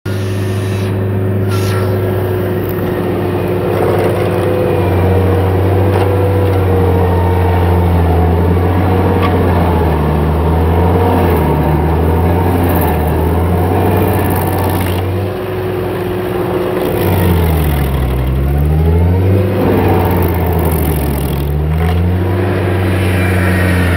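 Vermeer 502 stump grinder's engine running at full speed while its cutter wheel grinds into a tree stump. The engine note dips and recovers several times as the wheel bites into the wood under load, most deeply past the middle.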